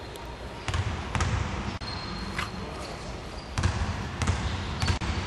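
Basketball bouncing on a hardwood gym floor, dribbled: two bounces about a second in, then three more about 0.6 s apart near the end, echoing in the hall.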